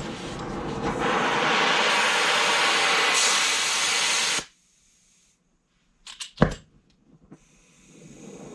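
Air-powered angle grinder run hard, a loud rushing hiss of air for about four seconds that stops abruptly. A few sharp clicks follow, then a quieter steady hiss of a lit torch flame.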